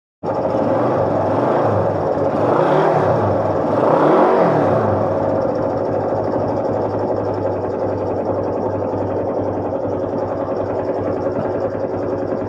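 1971 Honda SL350's parallel-twin engine running without air filters, revved up twice in quick succession about two to four seconds in, then settling to a steady fast idle.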